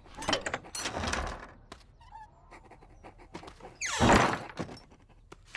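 Knocks and thuds at a wooden barn door, followed by one louder noisy burst about four seconds in.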